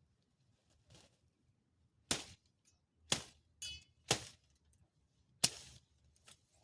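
Sharp knocks or chops: four loud strikes about a second apart, with a few fainter ones, one carrying a brief ring.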